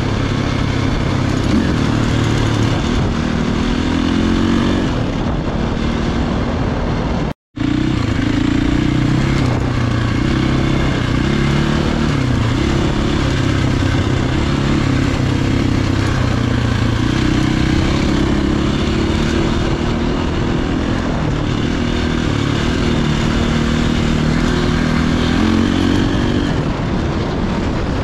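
450 four-stroke single-cylinder dirt bike engine running under way on trails, its pitch rising and falling as the rider works the throttle and gears. The sound cuts out completely for a split second about seven seconds in.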